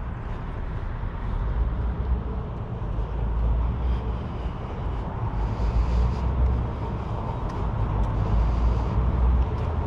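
Road traffic going by: a steady low rumble of engines and tyres that grows a little louder about two seconds in.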